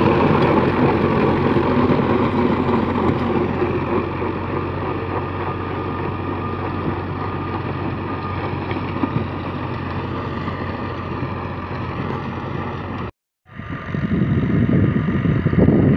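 Fiat 480S tractor's diesel engine running steadily under load as it drives a 48-blade rotavator through the soil, growing a little fainter as the tractor pulls away. The sound drops out for a moment about thirteen seconds in.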